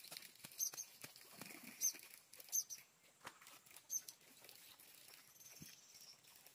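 Scattered soft knocks and rustling as a hoe works wet earth and weeds, with four short, sharp high chirps standing out over the first four seconds.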